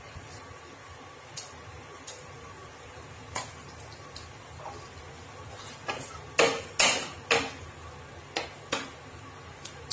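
Wooden spatula scraping and knocking against a nonstick frying pan while stirring whole spice seeds in hot oil. There is a quick run of loud strokes a little past halfway and two more soon after. Earlier there are a few faint ticks from the seeds in the oil.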